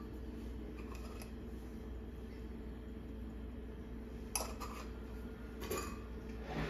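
Kitchen handling noise: a few sharp clicks and taps in the second half as a glass spice jar, its metal cap and a spatula are handled at a cooking pot, over a steady low hum.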